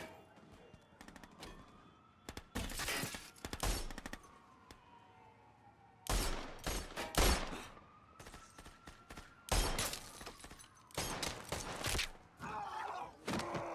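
Gunfight in rapid volleys of handgun fire: about five clusters of quick shots, each a second or so long, with short lulls between them.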